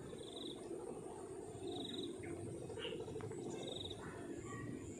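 Three short, high trilled chirps from a small calling animal, about one and a half to two seconds apart, over a faint low steady hum.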